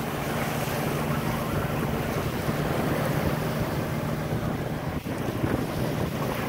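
A boat engine running steadily as a low drone, with wind buffeting the microphone and waves washing.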